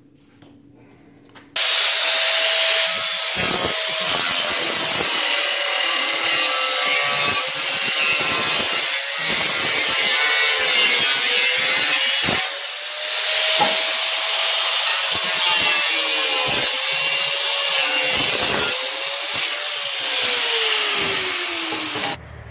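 Electric angle grinder cutting through the sheet steel of an old car cowl panel. It starts abruptly about a second and a half in, its motor whine dipping and recovering as the disc bites into the metal, and winds down with a falling whine near the end.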